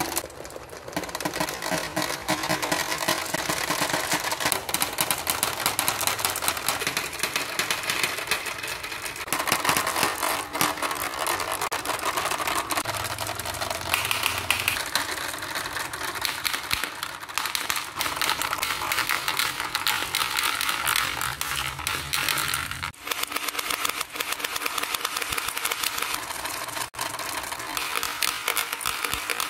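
Dozens of marbles rolling together down a homemade marble run, a dense, steady rattle of clicks as they knock against each other, the track and its card baffles. Near the end they drop and clack into a clear plastic tray.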